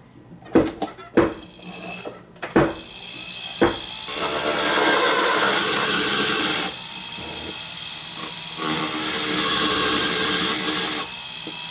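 A few sharp knocks and clicks, then from about four seconds in a jeweller's flex shaft runs with a large cylinder burr, grinding excess gold off a cast pendant. It grows louder twice while the burr bears on the metal.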